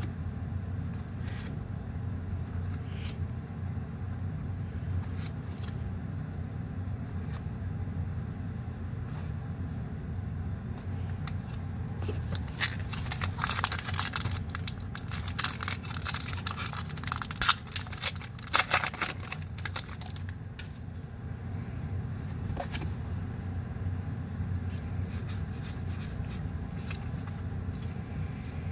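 Foil booster pack of Pokémon trading cards being torn open, its wrapper crackling and crinkling for several seconds about halfway through. Before and after come a few light clicks of cards being handled, over a steady low hum.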